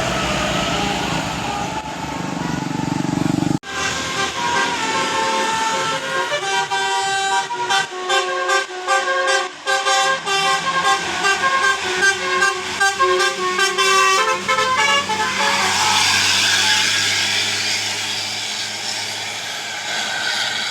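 A bus's Basuri telolet multi-trumpet air horn playing a quick melody of short stepped notes, over road noise, from about four seconds in to about fifteen seconds in. A noisy rush follows.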